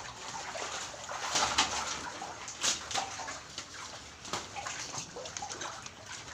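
Shallow floodwater splashing and sloshing as someone moves through it, in irregular splashes.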